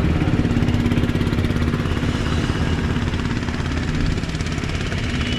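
Road traffic: a motor vehicle's engine runs close by with a steady pitched hum that eases off after about two seconds, over a constant rumble of traffic.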